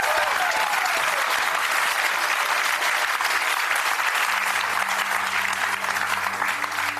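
Studio audience applauding. A low steady hum comes in about four seconds in, and the clapping thins out toward the end.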